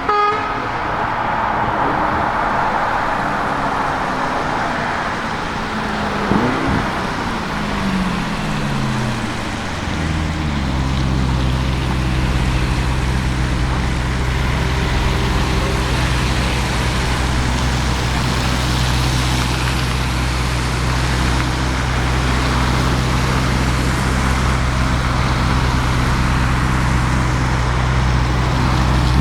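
Lamborghini Urus Performante's twin-turbo V8, breathing through an Akrapovic exhaust, idling with a steady deep note for most of the stretch. In the first ten seconds it is quieter, with engine pitches sliding up and down before settling about ten seconds in.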